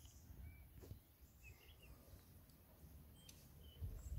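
Near silence: faint outdoor ambience with a few faint, short bird chirps and a brief low rumble near the end.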